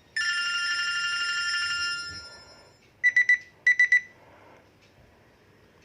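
BlackBerry ringtones: an electronic chord starts abruptly, holds steady and fades out about two seconds in, then two short bursts of rapid high-pitched beeps, like a trilling phone ring, about half a second apart.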